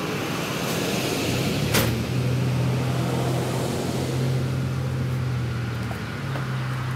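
A motor running with a low steady hum over a hiss, its pitch shifting slightly near the end, and one sharp click about two seconds in.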